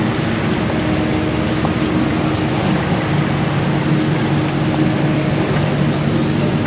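Steady engine drone with a constant low hum over an even rushing noise, unchanging throughout.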